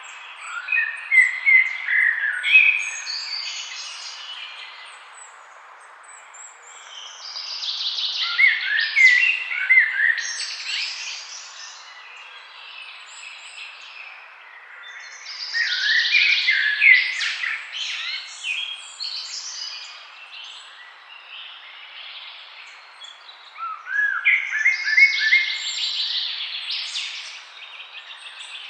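Forest birdsong: bursts of chirps and quick trills a few seconds long, returning about every eight seconds, over a steady background hiss.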